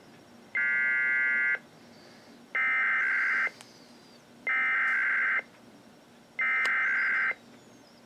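Sage EAS ENDEC sending an Emergency Alert System SAME header: four bursts of digital data tone, each about a second long and about two seconds apart, the coded start of an outgoing tsunami warning.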